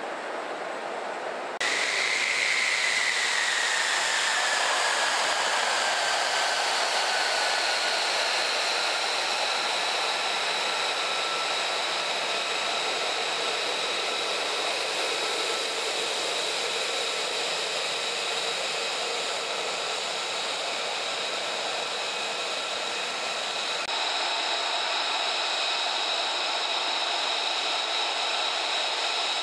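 Pratt & Whitney F135 turbofan of an F-35A Lightning II running on the ground: a steady high-pitched turbine whine over a rushing hiss. About two seconds in it gets suddenly louder and a whine slides down in pitch over several seconds before holding steady.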